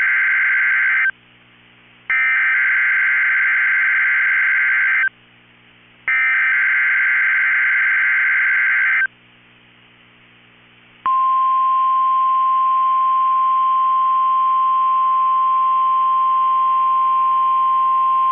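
NOAA Weather Radio Required Weekly Test: the SAME digital header bursts, a buzzy two-pitch data warble. The first burst ends about a second in, then two more bursts of about three seconds each follow with a second's gap between them. About eleven seconds in, the steady single-pitched 1050 Hz warning alarm tone starts and holds.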